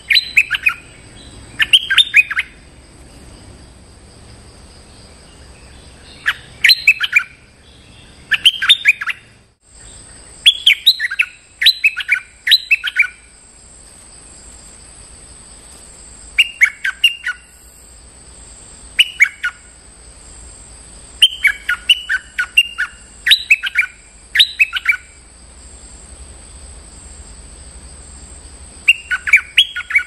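Stripe-throated bulbul singing short, bubbly, liquid phrases in clusters of a few notes, repeated every few seconds with pauses between. These are decoy calls meant to challenge a local territorial bird. A longer run of phrases comes about a third of the way in, and another about two-thirds in.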